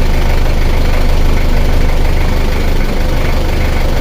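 Nissan Frontier D22 diesel engine idling steadily. Its injector nozzles are freshly calibrated and a stuck nozzle tip has been replaced, so it runs without the knock that was mistaken for a bad connecting rod.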